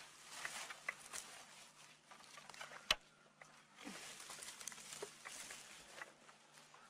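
Faint rustling and scraping of hands and feet working dry sandy ground and grass, with scattered light clicks and one sharper knock about three seconds in.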